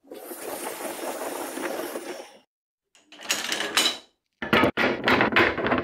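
Wooden bar clamps clattering onto a hardwood workbench: two rushing, sliding noises, then from about halfway a quick run of sharp wooden knocks, about six a second.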